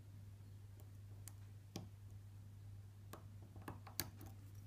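A few faint, scattered clicks from a small lock cylinder being handled, over a steady low hum.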